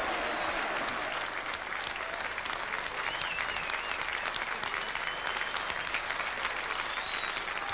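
A large audience applauding, dense and steady clapping.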